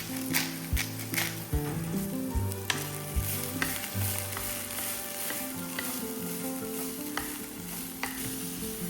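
Food frying and sizzling in an oiled pan, with sharp clicks of a utensil against the pan in the first few seconds.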